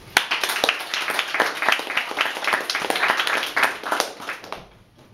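A small audience clapping, starting sharply and dying away about four and a half seconds in.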